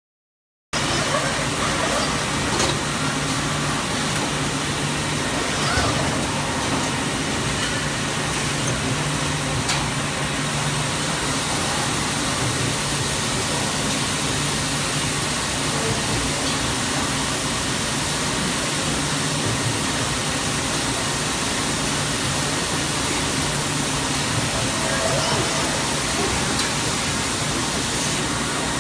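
Steady roaring hiss of gas brazing torches burning in a robotic brazing cell, with a steady machine hum underneath; it starts suddenly just under a second in and holds even throughout.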